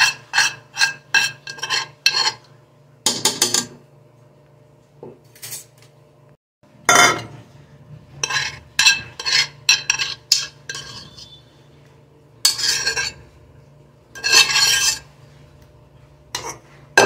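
Metal spoon scraping and clinking against the inside of an aluminium pressure cooker, clearing out leftover cooked chicken, in quick runs of short strokes with a pause partway through.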